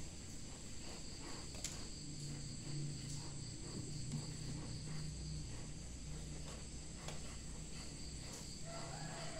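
Steady, high-pitched chorus of insects, with a low hum joining about two seconds in and a few light knocks.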